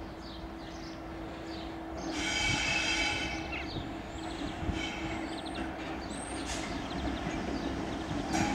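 Class 66 diesel locomotive, its two-stroke V12 running steadily, sounds its two-tone horn about two seconds in, with a second, shorter note around five seconds. Thin high wheel squeals follow as it rolls over the curved track.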